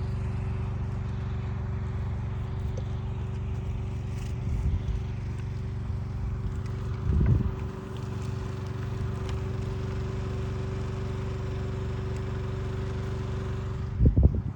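A steady mechanical hum, like an engine or motor running, with three short low thuds: a few seconds in, about halfway, and near the end.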